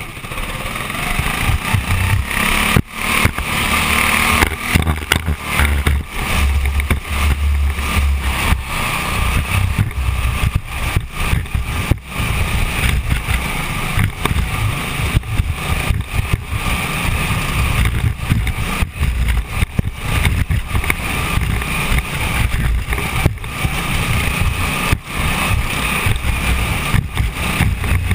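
Onboard sound of a small winged dirt-track sprint car: its engine running, picked up by a camera mounted on the car, with a heavy rumble and a choppy, fluctuating level.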